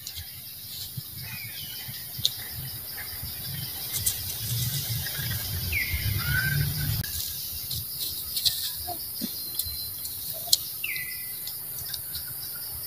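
Outdoor ambience of insects droning steadily in a high, pulsing hum, with birds chirping now and then, including two short falling calls. A few sharp clicks stand out above it.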